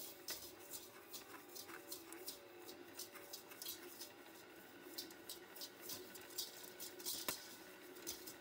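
Stand mixer running at low speed: its motor hums steadily while the flat beater churns butter and sugar in a stainless steel bowl, with many irregular short scrapes and ticks from the sugar being worked.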